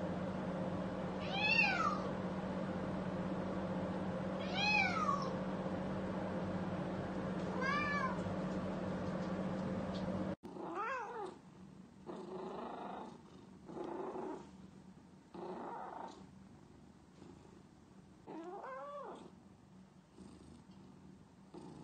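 Domestic cats meowing: three drawn-out meows about three seconds apart over a steady hum. Then, after a sudden cut, a quieter run of shorter cat calls and meows.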